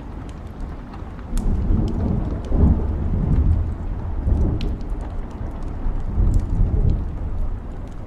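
Thunder rumbling for several seconds over steady rain, swelling about a second in and easing off near the end. Scattered sharp crackles from a wood fire sound through it.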